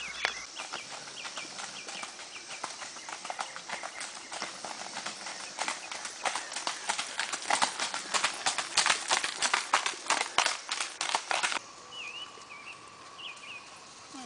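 Hoofbeats of a ridden Missouri Fox Trotter horse at a gait: a quick, steady run of sharp clip-clops that grows louder on a gravel road, then cuts off abruptly about four-fifths of the way through. Birds chirp after it stops.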